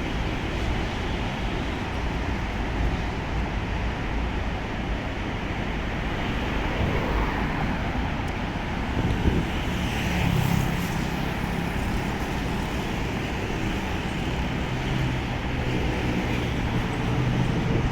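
Diesel-hauled freight train running: a steady, loud rumble, with the locomotive engine's low hum coming through from about ten seconds in.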